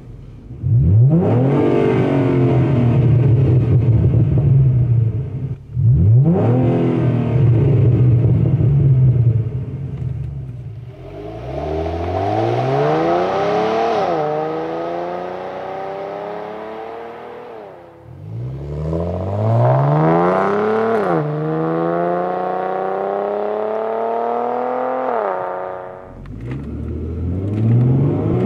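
2011–2014 Ford Mustang's 3.7-litre V6 on its stock exhaust, accelerating hard in several pulls: the revs climb steeply and drop at each upshift before climbing again. Heard partly from inside the cabin and partly from the roadside as the car pulls away.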